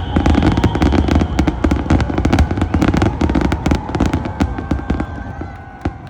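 Fireworks going off in a dense barrage of rapid cracks and bangs over a low rumble, thinning out and getting quieter near the end.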